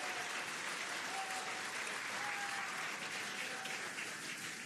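A crowd applauding and cheering, a steady wash of clapping with a few voices rising over it, celebrating the capsule's successful splashdown.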